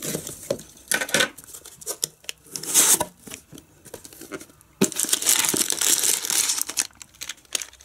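Crumpled brown kraft packing paper rustling and crinkling as hands open a cardboard box and dig through the paper. Scattered short rustles come first, then a longer stretch of steady crinkling about five seconds in.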